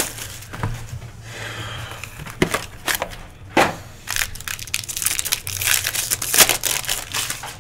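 Foil trading-card pack crinkling and being torn open by hand, followed by a clear plastic wrapper crinkling, with several sharper crackles among the rustling.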